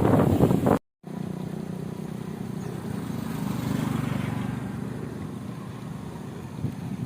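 Wind buffeting the microphone while riding, then an abrupt cut about a second in; after it, a steady low road-and-vehicle drone that swells toward the middle and fades.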